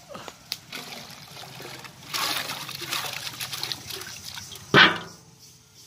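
Raw potato slices tipped from a steel bowl into a large pot of water, splashing and pouring for about two seconds. One sharp knock near the end is the loudest sound.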